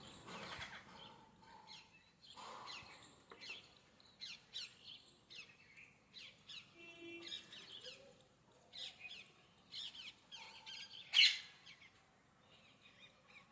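Parrot making its natural calls: a string of short, quick chirps and squawks, with one loud, sharp call about eleven seconds in.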